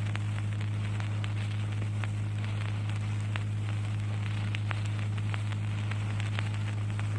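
Steady low electrical hum with a faint hiss and scattered small crackling clicks: the background noise of the recording or its amplification, heard while the reciter is silent.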